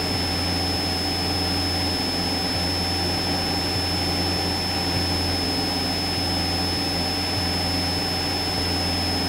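Steady in-flight cockpit drone of a Cessna 172SP's four-cylinder Lycoming engine and propeller at cruise power, with a thin, steady high whine over it.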